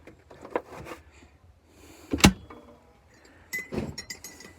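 A single sharp knock about halfway through, then a quick run of small clicks and clinks near the end.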